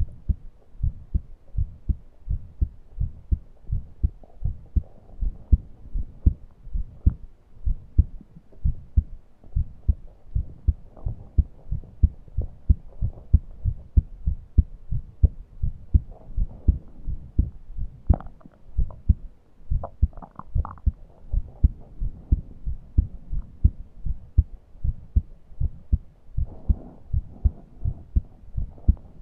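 Human heartbeat, a regular train of low-pitched beats. It is joined by faint breathing noise near the end and a few brief clicks a little past the middle.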